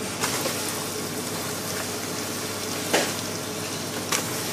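Vegetables and fish bones sizzling steadily in a hot stockpot, sweating before any water goes in, with three short sharp knocks against the pot.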